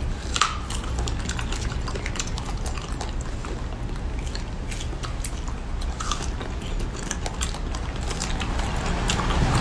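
Strawberries being bitten and chewed close to the microphone: a scatter of short, wet clicks and smacks over a low steady hum.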